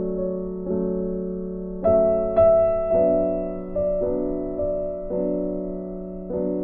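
Background music: gentle keyboard piano chords struck about once a second, each one fading before the next, with a brighter higher note rising over them about two seconds in.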